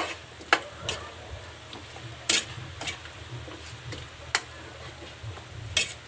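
Metal spatula stirring diced squash in an aluminium wok, clinking and scraping against the pan about seven times at an uneven pace, over a steady low hum.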